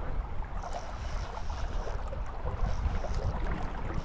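Wind rumbling on the microphone over water lapping and splashing against the side of a fishing boat on a choppy river.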